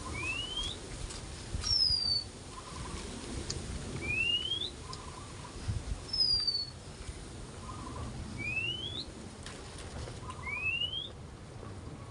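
A bird calling: four clear rising whistles, each about half a second long, with two shorter falling whistles in between, over a low rumble.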